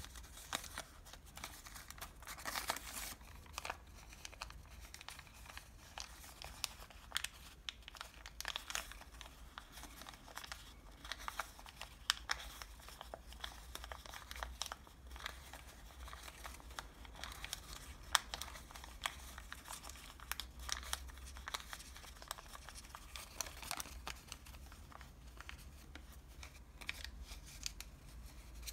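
Paper from a KFC french fries bag being folded and creased by hand: a steady run of soft crinkles and sharp little crackles, busiest about two to three seconds in.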